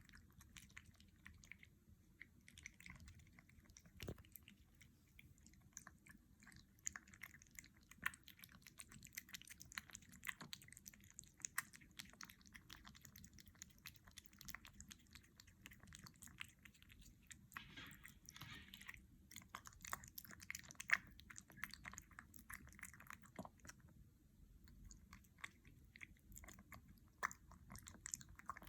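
Kitten chewing wet cat food: faint, irregular wet smacks and clicks of its mouth working the food, with a brief soft rustle about two thirds of the way through.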